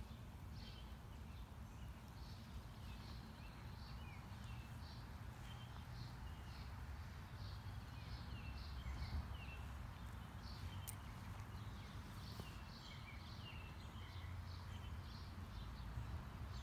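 Small birds chirping: many short high calls and quick falling notes, over a faint low rumble.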